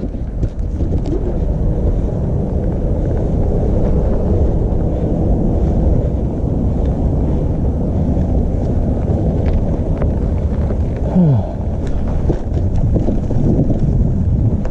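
Wind buffeting the microphone, a dense low rumble, with a brief falling tone about three quarters of the way through.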